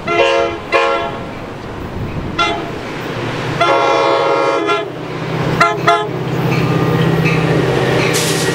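Coaster F40 diesel locomotive sounding its multi-tone air horn in a series of blasts: two short ones, a brief one, a long one of about a second, then two quick toots. Under the later blasts its diesel engine drone grows steadily louder as the train approaches and passes close by near the end.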